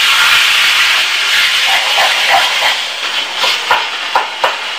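Tomato-onion masala sizzling in hot oil in a cooking pan, a steady hiss. About halfway through, a spatula starts scraping and knocking against the pan as the masala is stirred.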